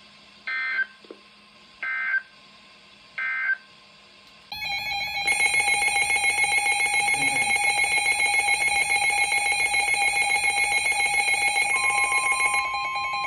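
Three short screeching bursts of EAS SAME digital data, the end-of-message code closing the previous warning. About four and a half seconds in, a loud steady EAS alert tone starts, with a single steady tone of around a kilohertz taking over near the end.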